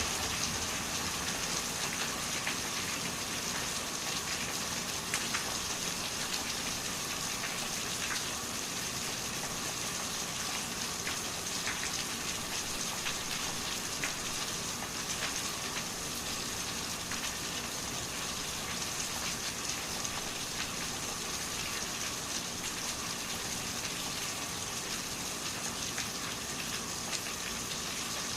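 Waterfall: a steady rush of falling water, with occasional small splashes.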